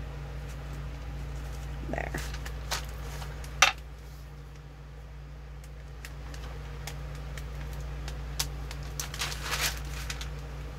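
Handling noise from clear plastic-gloved hands working a small eye hook into a soft resin casting: rustling and crinkling of the gloves and the sheet beneath, with a sharp click about three and a half seconds in and a cluster of crinkles near the end, over a steady low hum.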